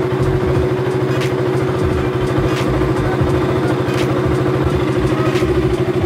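KTM Duke 200's single-cylinder four-stroke engine idling steadily, left running to recharge a battery that had gone low. Sharp ticks come over it roughly every second and a half.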